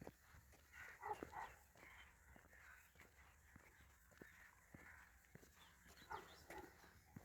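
Faint animal calls: short pitched calls in pairs about a second in and again near the end, over soft, regular footsteps.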